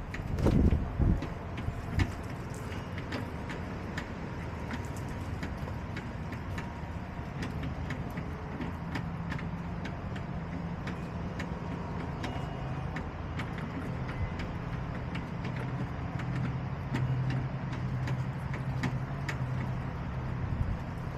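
An engine running with a steady low hum that grows a little stronger in the second half, with many small clicks and taps over it; a few louder low thumps about a second in.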